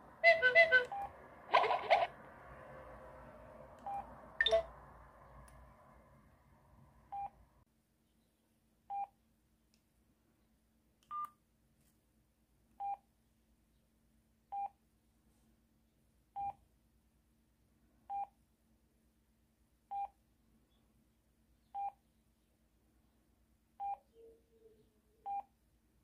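Samsung SGH-E700 flip phone previewing a short chiming message tone through its small speaker; the tone rings out and fades. Then come the phone's short keypad beeps, one about every two seconds and one higher-pitched, as its menus are stepped through.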